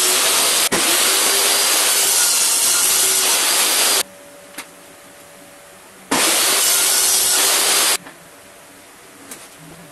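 Table saw running loud and steady while a pine board is fed through along the fence. The noise cuts off about four seconds in, leaving quiet shop sound with a few light knocks. It comes back for about two seconds and stops again near the end.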